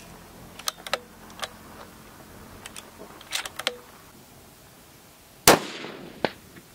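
A few light clicks and pings, then one loud rifle shot about five and a half seconds in, its report echoing away. A sharper crack follows under a second later.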